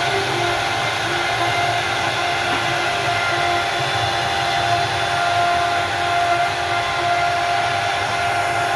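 A CNC router running steadily: a continuous loud hiss with a held whine of several steady tones from the spindle and machine.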